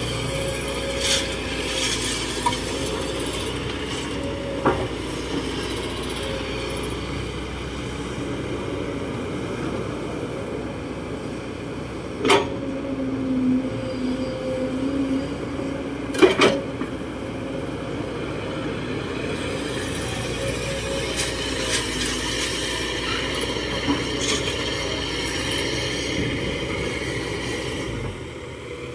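Kobelco SK200-8 hydraulic excavator's diesel engine running steadily under load as it digs soil. Near the middle the steel bucket gives two sharp clanks about four seconds apart.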